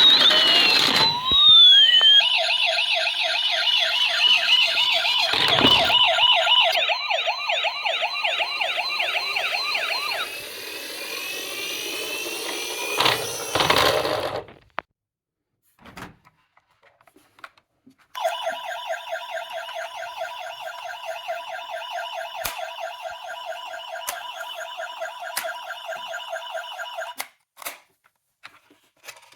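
Electronic sirens of toy emergency-vehicle mini cars sounding in rapid warbles, with more than one siren overlapping at first. They cut off with a click about halfway through; after a few seconds of small clicks another toy siren warbles for about nine seconds and stops with a couple of clicks.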